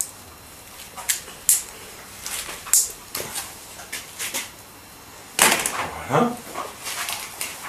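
Sharp clicks and handling noises of pliers squeezing quick-splice electrical connectors onto motorcycle indicator wiring, with a louder, longer rustle with a sliding pitch about five and a half seconds in.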